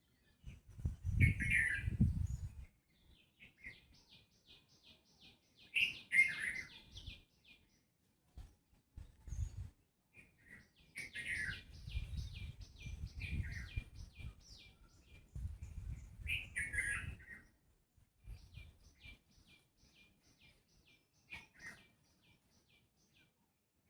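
Birds calling. One gives runs of short, quick, evenly repeated high notes, several times over; others give louder single calls. Low rumbles come and go between them, the loudest near the start.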